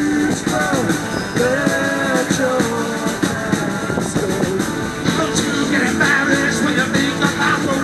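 Background music: a rock song with guitar, drums and a singing voice.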